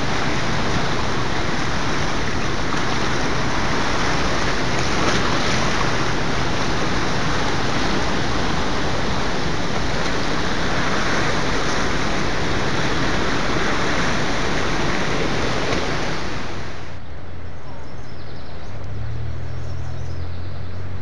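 Floodwater rushing through rapids, a steady whitewater rush of a river running well above normal after heavy rain. It cuts off suddenly about seventeen seconds in, leaving a quieter low hum.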